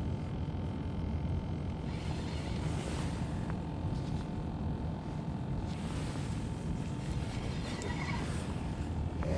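Boat motor running steadily, a low rumble with a faint steady whine, with brief hissy swells of wind or water about two, six and eight seconds in.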